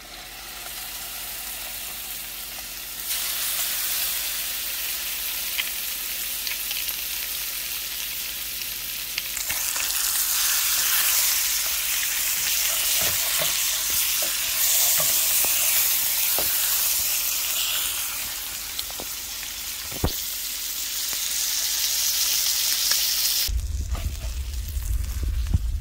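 Vermilion rockfish fillets sizzling and frying in hot fat in a skillet: a dense steady hiss with scattered pops and ticks, growing louder about 3 seconds in and again about 10 seconds in. Near the end the sizzle cuts off and a low hum takes over.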